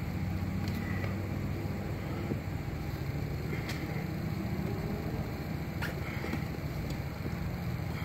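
Steady low background hum with a few faint sharp clicks.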